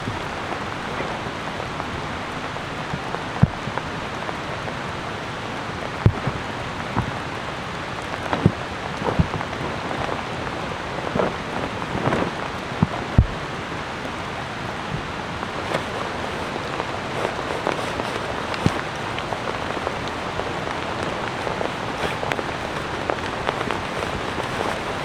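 Steady rain falling, with scattered louder drops striking close by.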